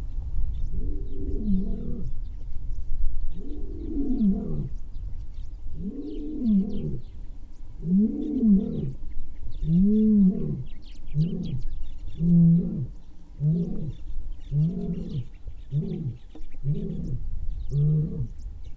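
A male lion's roaring bout: several long, deep moaning roars that rise and fall in pitch, about two seconds apart, give way about halfway through to a run of shorter grunts, roughly one a second.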